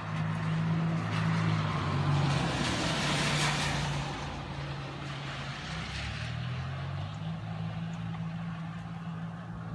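A motor vehicle passing, with a steady low engine hum and a swell of road noise that peaks about three seconds in and then fades.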